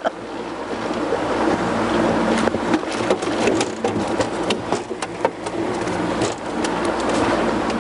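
Boat's outboard motor running steadily under way with a rush of water. From about two seconds in come many sharp splashes and knocks of leaping Asian carp striking the water and the boat.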